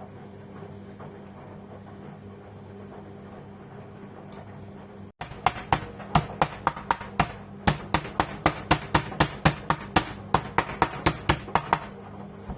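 Cleaver chopping meat on a butcher's block: a fast, even run of sharp strikes, about four a second, starting about five seconds in over a steady background hum.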